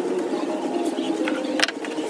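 Birds cooing continuously in the background, with one sharp knock of wood on the workbench about one and a half seconds in.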